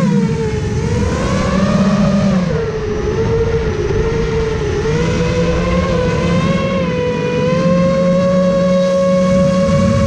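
Motors and propellers of a custom-built FPV quadcopter whining in flight, heard from the onboard camera. The pitch drops at first, wavers up and down with the throttle, then rises a little and holds steady, over a rushing noise underneath.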